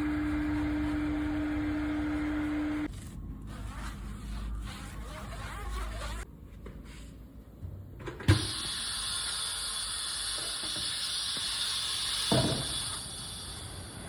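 Tyre-changing shop equipment at work: a steady motor hum for about three seconds, then scattered handling noises. About eight seconds in, a sharp knock starts a loud, steady hiss that runs almost to the end, with another knock near the end.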